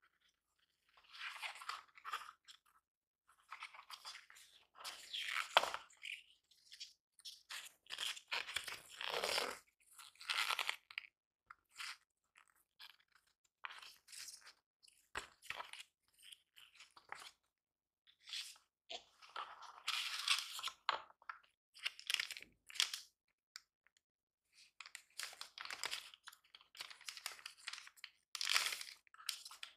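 Paper and cardboard rustling and sliding as a phone box's card inserts and a folded warranty booklet are handled, in short bursts with silent gaps between. Near the end, a frosted plastic sleeve crinkles.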